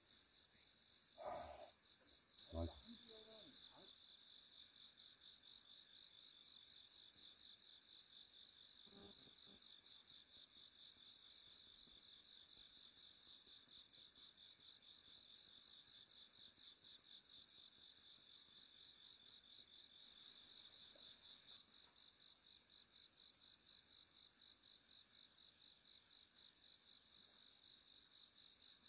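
Faint insects trilling: a steady, fast-pulsing high note, with a higher chirp repeating every two seconds or so that stops about two-thirds of the way through. A couple of soft knocks near the start.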